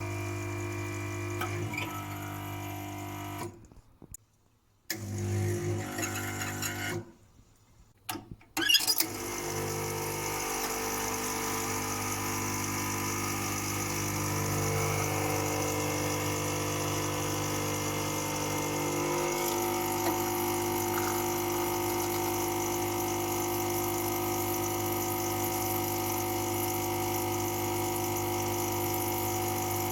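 Lelit Mara X V2 espresso machine running: a steady pump hum with a higher hiss and whine, the weird sound its owner puts down to the over-pressure valve. It breaks off twice within the first ten seconds, then runs steadily.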